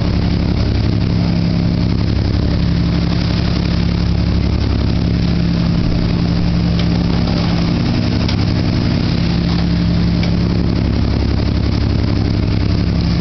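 Boat engine running steadily at an even, unchanging pitch, a low hum with a hiss over it.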